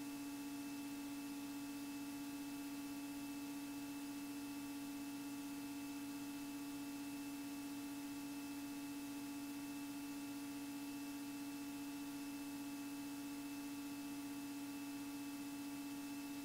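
Steady electrical hum with a constant hiss, unchanging throughout, in the Beechcraft Bonanza's cockpit audio.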